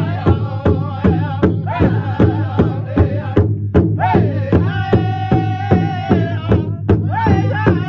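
Drum group singing: several men chant in high, wavering voices over a shared drum struck together in a steady beat of about two and a half strokes a second. A long held high note comes about five seconds in.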